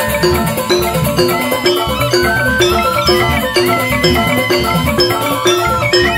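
Balinese joged bumbung gamelan: bamboo xylophones played fast in repeating interlocking patterns, driven by kendang hand drums.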